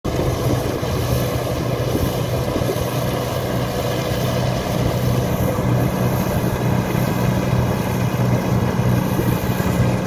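A 1977 New Holland Clayson 1540 combine harvester running steadily while harvesting winter barley: a constant low engine drone that does not change.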